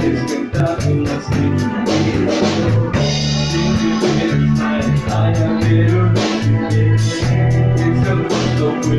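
Pop-rock band playing an instrumental introduction, with bass, drums, guitar and organ-like keyboard, before the vocals come in.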